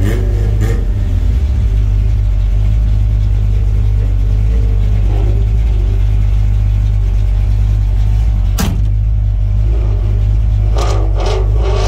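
Farm truck's engine idling, a steady deep rumble heard from inside the cab, with a single sharp click late on.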